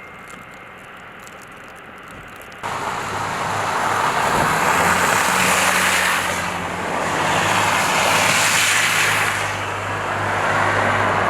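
A steady low motor hum under a loud rushing noise that starts suddenly about two and a half seconds in and swells twice.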